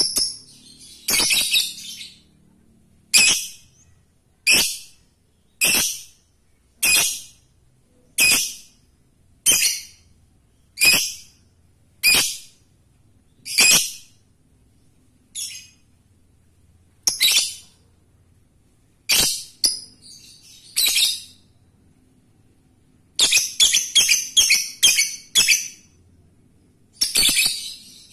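Caged lovebird calling: short, sharp, high-pitched calls at about one a second, spacing out for a while, then a quick run of about eight calls close together near the end.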